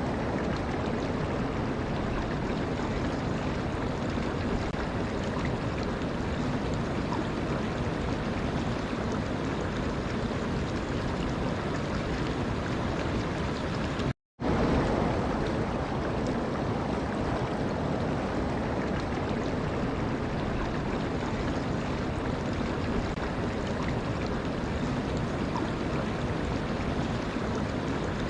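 Steady rushing of flowing water, an even noise with no rhythm, which cuts out completely for a split second about halfway through.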